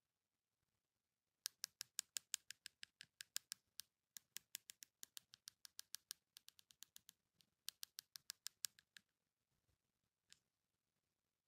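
Long fingernails tapping quickly on a blush compact's mirror: sharp clicks about eight a second, in runs from about a second and a half in until about nine seconds with brief breaks, then one lone tap near the end.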